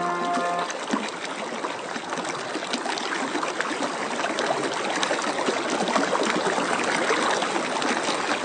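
Music ends under a second in, giving way to a steady sound of running water with a fine, crackling trickle and splash.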